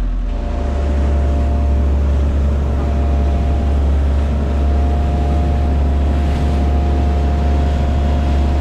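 Motorboat engine running under way. About a second in its low drone grows louder and a little higher as the throttle opens, then it holds steady.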